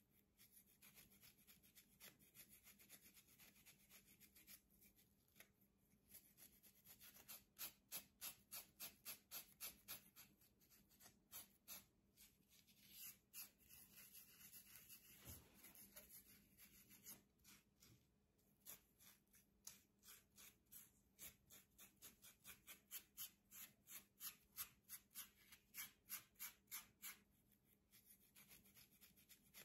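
Comb scratching across a flaky scalp and short coiled hair, scraping loose dandruff. It goes in runs of quick, faint strokes, about two or three a second, with short pauses between the runs.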